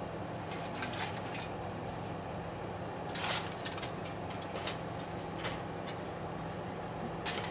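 Gravy being poured and scraped out of a plastic container with a whisk over steak in aluminium foil: scattered short clicks and scrapes, loudest about three seconds in and again near the end, over a steady low hum.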